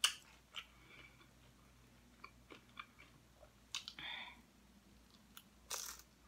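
Close chewing of crunchy nacho chips, with a sharp crunch at the start and scattered crunches and mouth clicks, the loudest about four and six seconds in.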